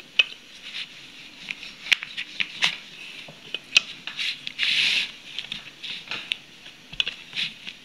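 Wooden rolling pin rolled back and forth over a crustless bread slice on a plastic cutting board: scattered light knocks and clicks of the pin against the board, with a short rubbing swish a little past halfway.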